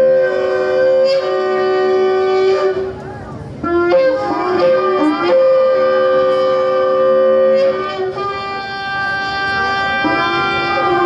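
Several shofars blown together in long, overlapping held blasts at different pitches. About three seconds in the blasts drop away into short wavering notes, then the long tones resume.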